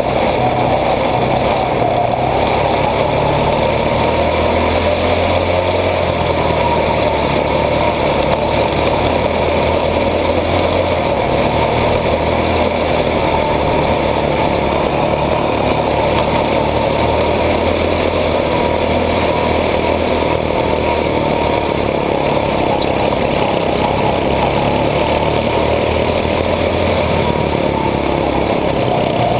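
Mini-dwarf race car's small engine running steadily under load, heard from a camera mounted on the car, its pitch rising and falling slightly as the throttle changes.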